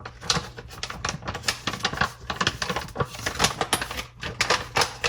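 Rapid, irregular clicking and tapping of metal baking utensils, such as measuring spoons and a sifter, while dry ingredients are measured out.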